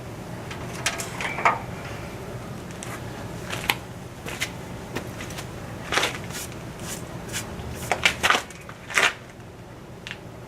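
Irregular clicks, knocks and light clatter of parts and tools being handled on the stripped front end of a car, the loudest in a cluster about eight to nine seconds in, over a low steady hum.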